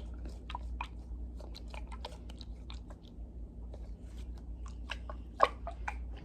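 A foam squishy toy being squeezed and handled close to the microphone, giving irregular soft crackles and clicks, with a louder one near the end.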